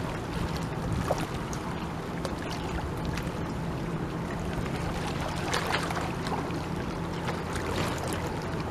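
Steady low hum of a distant boat motor over wind and lapping water, the hum fading near the end.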